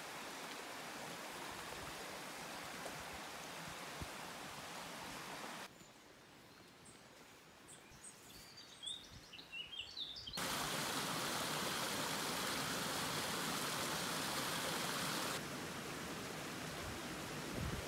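Steady outdoor ambient noise that jumps abruptly in level a few times, as if cut between separate shots. In a quieter stretch in the middle, a bird gives several short high chirps.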